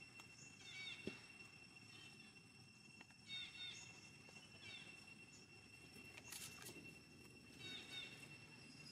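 Faint outdoor ambience: short, high chirping calls, each a quick falling note or two, come about three times, over a steady high-pitched whine.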